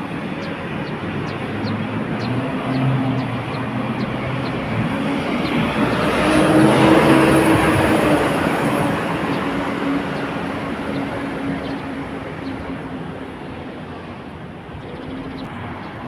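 A motor vehicle passing on the street: engine and road noise build to a peak about seven seconds in, then slowly fade.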